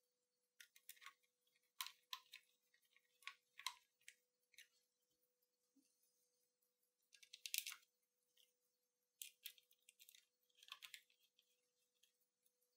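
Faint, scattered small clicks and light scrapes of hands and a small screwdriver fitting screws into the plastic case and cassette mechanism of a Sony WM-F63 Sports Walkman, with a faint steady tone underneath.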